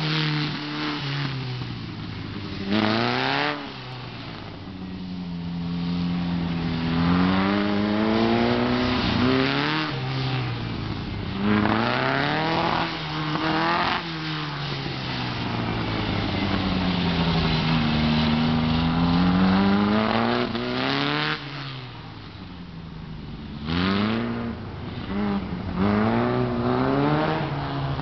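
Engine of a VW-powered open-wheel autocross car, running hard through a cone course: its pitch climbs as it accelerates and drops as it slows for each turn, again and again, loudest in short rising bursts and quieter for a few seconds near the end as the car is farther off.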